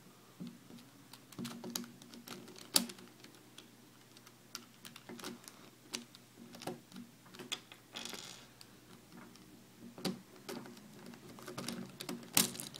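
Plastic pieces of a Calvin's Puzzle 4x4x6 twisty cube clicking and clattering as the puzzle is turned and taken apart by hand: irregular scattered clicks, with sharper ones about three seconds in and near the end.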